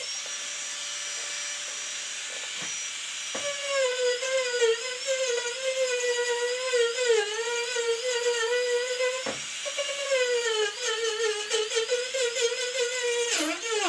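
Marathon micro motor handpiece spinning a knife edge cutter into the wood: a steady high whine whose pitch wavers as the cutter bites. The pitch dips sharply for a moment about three seconds in, about nine seconds in and near the end.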